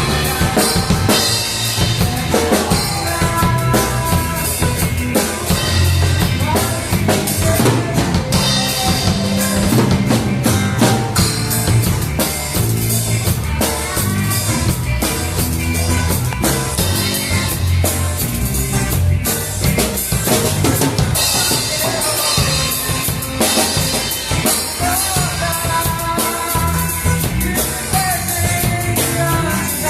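A worship band playing, with a drum kit keeping a steady beat under bass and other instruments.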